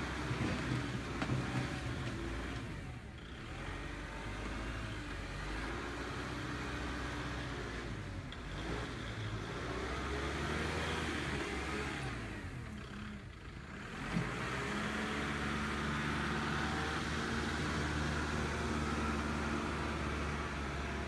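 Kubota machine's diesel engine running and working, its note rising and falling repeatedly, with two brief dips in loudness.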